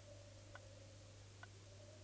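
A clock ticking faintly, two evenly spaced ticks a little under a second apart, over a faint steady hum.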